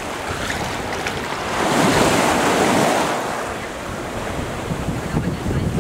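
Small waves breaking and washing up the sand at the water's edge, one wave swelling loudest about two seconds in and then easing off.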